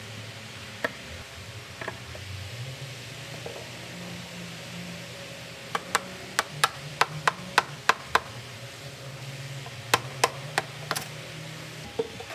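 Sharp knocks on metal inside an open gearbox housing, struck with a stick: a quick run of about nine taps halfway through, then three or four more near the end, over a steady low hum.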